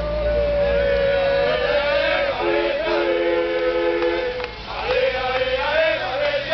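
A group of football supporters chanting and singing in chorus over a long steady horn blast. About midway the blast breaks off and a two-note horn sounds for a couple of seconds, then the long blast resumes.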